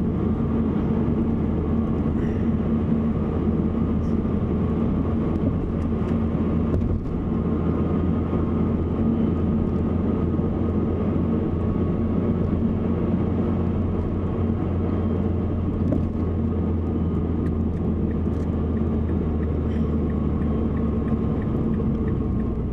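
Steady low rumble of a 2007 Mazdaspeed3 being driven: its turbocharged 2.3-litre four-cylinder engine together with tyre and road noise, heard inside the cabin.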